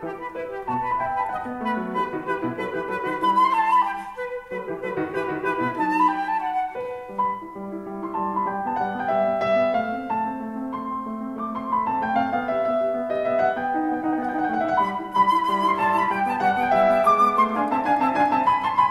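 Instrumental music: a melody of held notes over a sustained accompaniment.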